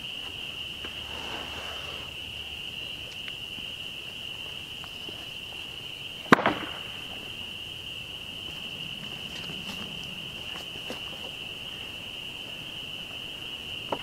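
A sawn board is set down onto a stack of lumber: one sharp wooden clack about six seconds in, with a few faint knocks later. A steady high-pitched chorus continues in the background.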